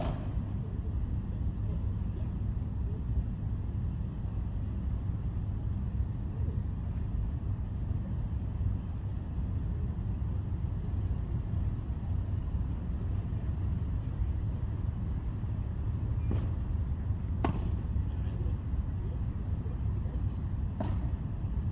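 Steady low rumble under a constant high-pitched trill, like a chorus of crickets, with three sharp knocks in the last six seconds.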